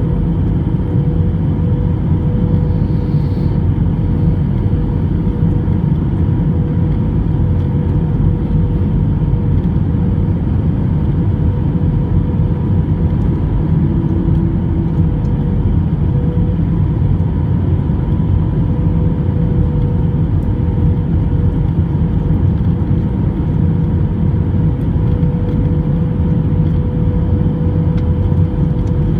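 Airbus A321 jet airliner in flight, a loud steady drone of engine and airflow noise: a deep rumble with two steady hums running through it.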